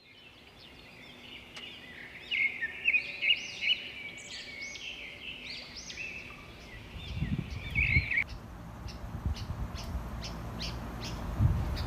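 Birds chirping: a busy run of short, rising-and-falling chirps that stops suddenly about eight seconds in. A low rumble and faint ticks, evenly spaced, follow.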